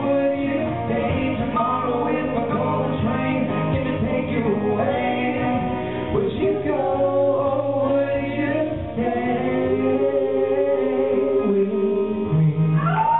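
Two male voices singing a duet in harmony over instrumental accompaniment, holding long sustained notes.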